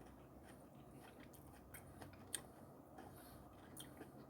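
Near silence with faint, scattered crunchy clicks of someone chewing crispy fried cucumber chips in a salad, the sharpest about two and a half seconds in.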